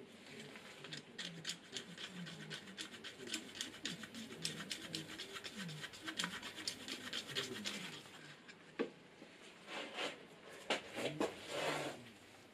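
Wooden stir stick scraping round and round inside a small plastic cup as two-part epoxy is mixed, in a fast run of short scrapes. Near the end come a few louder knocks and a short rustle as the cup is handled and set down.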